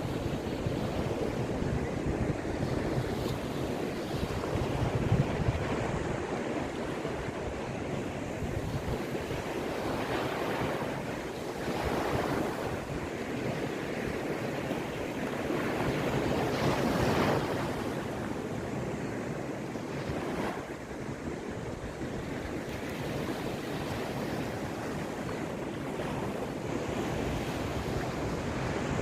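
Sea waves washing onto the Caspian shore, a continuous surf wash with a few waves breaking louder, with wind buffeting the microphone.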